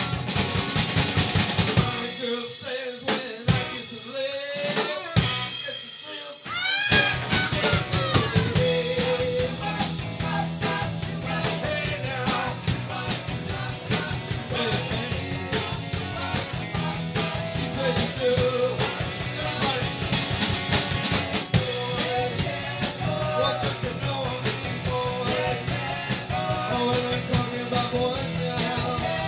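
Live rock band playing: electric guitars, bass guitar and drum kit. About two seconds in the band drops to a sparse break with a few single hits and rising glides. The full band comes back in about seven seconds in.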